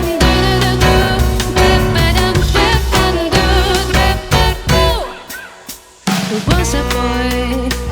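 Jazz band with drum kit playing an instrumental passage; about five seconds in the music thins out and fades for a second, then the band comes back in together on a drum hit.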